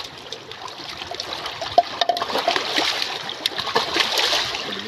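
Water trickling and splashing, with scattered small clicks over it.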